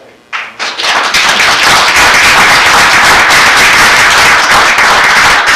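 Audience applauding: the clapping breaks out about half a second in and goes on loud and steady.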